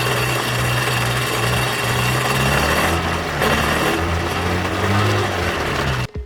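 Sea-Doo's Rotax 718cc two-stroke twin engine running steadily at a fast idle out of the water on a hose-fed cooling supply, during its first test run after an engine swap. The pitch wavers up and down slightly midway, and the sound stops abruptly near the end.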